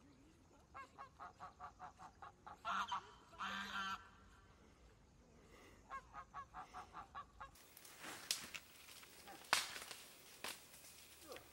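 White domestic goose honking in quick runs of short calls, about five or six a second, with two longer, louder honks about three seconds in. Near the end the honking stops and a few sharp cracks follow.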